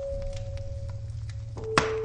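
Fire crackling with scattered sharp pops, one louder pop near the end, over a low steady rumble. Soft, long-held musical notes sound with it, one note giving way to a lower one near the end.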